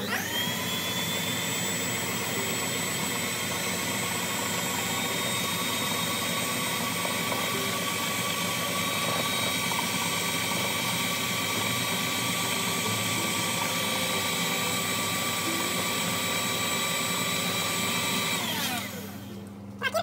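KitchenAid stand mixer's motor spinning up, then running at a steady whine as it beats a thin cake batter, winding down and stopping near the end.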